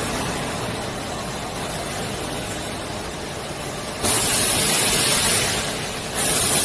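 Frying line machinery running with a steady mechanical noise. About four seconds in, a loud hiss starts suddenly and lasts about two seconds, and a second hiss starts just before the end.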